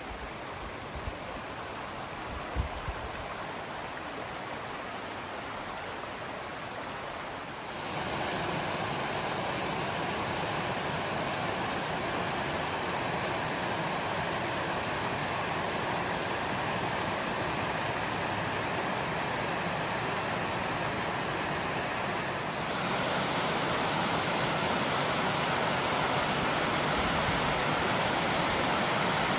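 Steady rush of water pouring over a waterfall's cascades, getting louder in two steps, about eight seconds in and again about twenty-two seconds in.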